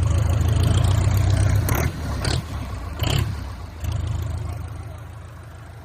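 Newly fitted diesel engine of a Swaraj tractor running on its first start, held at high revs for about two seconds and then dropping back. Two short sharp sounds come around the middle, and the engine eases down toward the end.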